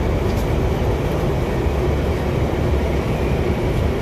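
Steady low rumble of an electric commuter train carriage, heard from inside the cabin as the train runs along the track.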